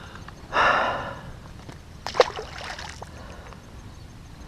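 A short splash of water about half a second in, then a quick cluster of sharp clicks and knocks around two seconds in.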